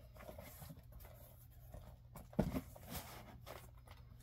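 Comic books being handled and lifted out of a cardboard box: paper and plastic rustling with a few soft knocks, the loudest about two and a half seconds in.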